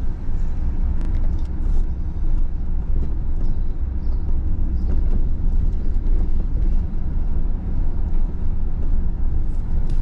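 Steady low rumble of a car driving, mostly road and engine noise.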